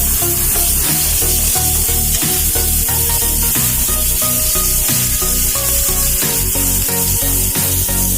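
Chopped onion frying in hot oil in a kadai, with a steady sizzle.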